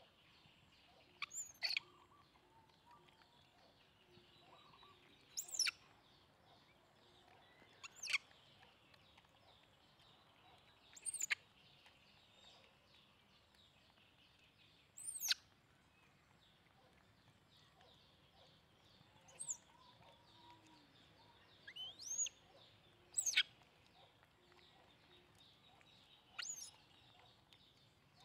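Short, high chirps sweeping sharply downward in pitch, typical of a bird calling, repeated every two to four seconds, sometimes two in quick succession. Under them is a faint, steady high hiss.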